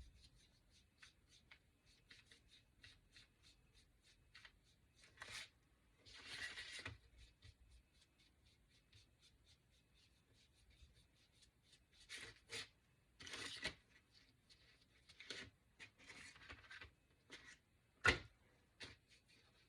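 Quiet crafting sounds: a paintbrush scratching in short strokes over a small wooden cutout, with the piece being handled on the table and one sharp click near the end.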